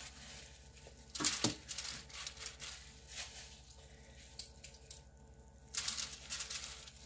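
Marinated chicken drumsticks being laid out by hand in a foil-lined baking tray: quiet wet plops and light crinkles of the aluminium foil, with louder handling noises about a second in and again near the end.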